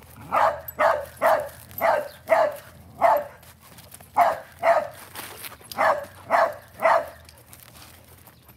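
A dog barking repeatedly: about eleven sharp barks, roughly two a second, in short runs with brief gaps between them.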